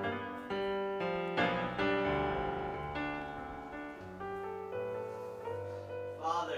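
Solo piano music: held chords and single notes struck about once a second, each ringing on as the next comes in.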